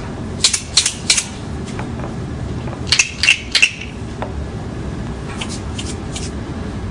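Montessori sound cylinders, cardboard cylinders holding a filling, shaken in short rattling bursts: three quick shakes about half a second in, another three or four around three seconds, and a fainter group near six seconds, as cylinders of different loudness are compared.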